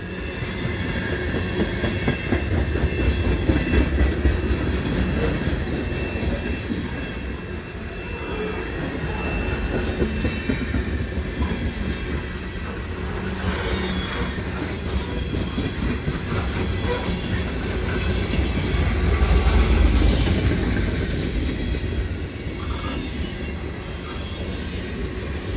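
Freight train cars rolling past at close range: a steady rumble with the clickety-clack of wheels over rail joints. A thin, high wheel squeal runs through the first half. The train is loudest about three-quarters of the way through.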